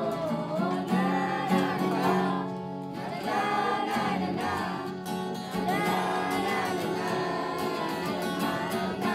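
Music: singing voices over a strummed acoustic guitar.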